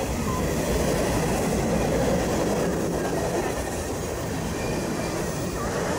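Freight train cars rolling past on the track: a steady noise of steel wheels on rail.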